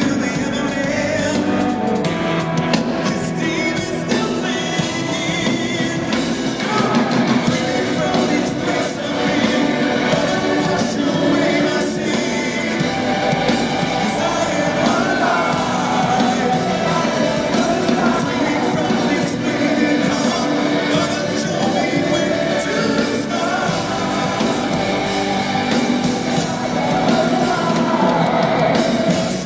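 Rock band playing live, with a male lead singer over keyboards, guitars and drums, heard from among the audience in a concert hall.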